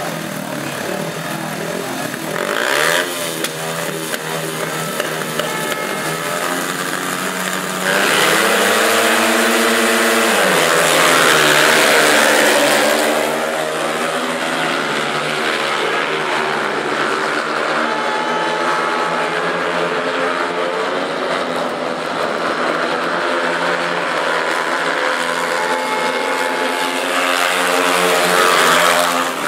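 Four speedway motorcycles' single-cylinder methanol engines revving at the start gate. About eight seconds in they jump sharply louder, rising in pitch as the bikes leave the start, then run hard as the pack races round the track.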